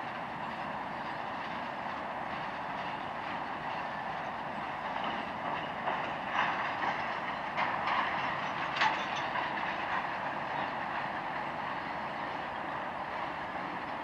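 Freight cars of a long mixed train (tank cars and covered hoppers) rolling past, a steady rumble of wheels on rail. A cluster of sharp clicks and clanks comes about six to nine seconds in.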